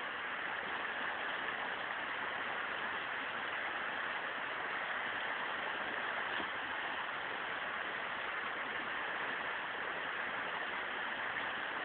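River rapids rushing steadily: white water churning over rocks.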